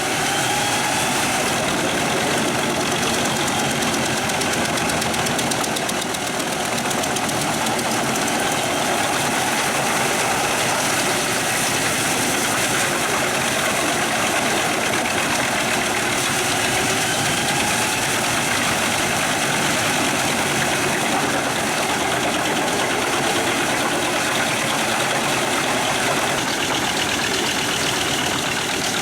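Pezzolato PTH 1400/1000 drum wood chipper running, powered by its Scania truck engine: a loud, steady, dense machine noise with faint slow rises and falls in pitch.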